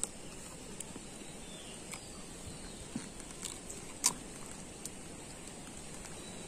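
Kitchen knife cutting into a raw green mango: a few scattered crisp clicks as the blade goes through the firm flesh, the loudest about four seconds in, over a faint steady hiss.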